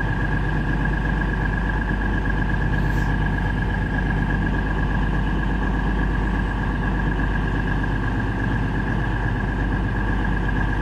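Class 221 Super Voyager diesel-electric train standing at the platform, its underfloor diesel engines idling with a constant low hum and a steady high whine.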